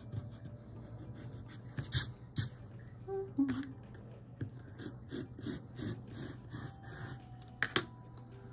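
Graphite pencil scratching on textured cold-press watercolor paper in short, irregular strokes, two of them louder, about two seconds in and near the end, over a steady low hum.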